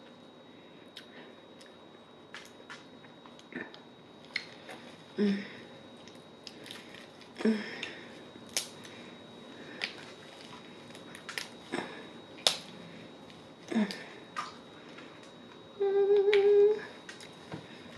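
Crab leg shells cracking and snapping as they are broken open and picked apart by hand, in scattered sharp clicks, with chewing between them. Near the end there is a brief steady hum, about a second long.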